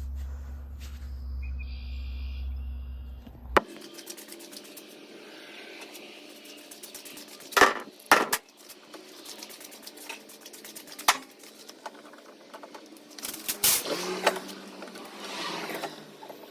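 Sharp clicks, clinks and knocks of wire and hand tools being worked at a metal electrical box, a few louder knocks scattered among lighter clattering. A low steady hum in the first few seconds stops abruptly at a click.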